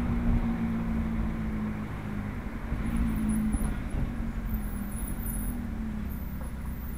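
Ferrari F430's V8 engine running at low revs while the car drives, heard from inside the cabin as a steady hum over road rumble, picking up briefly about three seconds in.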